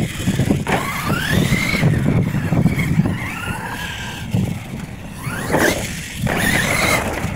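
R/C monster truck's motor whining, rising and falling as the throttle is worked through jumps, with its tyres churning on dirt. A couple of thumps come as it lands.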